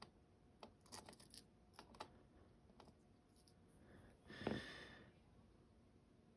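Faint, scattered clicks and ticks of small lock pins and a tool being handled as the pin stacks are taken out of a euro cylinder lock. There is a brief, louder scuffing sound about four and a half seconds in.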